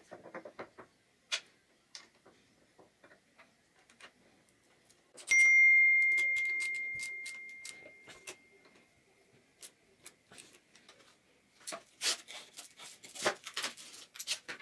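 Scattered clicks and taps of hard objects, with one ringing metallic ding about five seconds in that fades away over a few seconds, and a quick run of clicks near the end.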